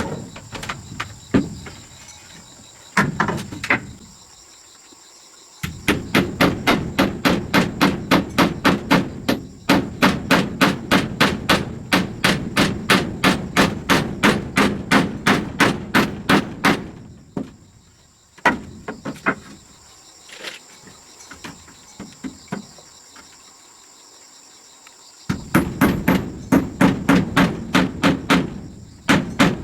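Rapid, steady hammer blows, about three a second, in two long runs with a pause of several seconds between them, and a few scattered knocks near the start.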